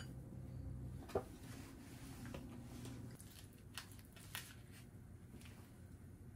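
Faint kitchen handling sounds while food is arranged into ceramic bowls: a sharp click about a second in and two softer clicks a little later, over a low hum.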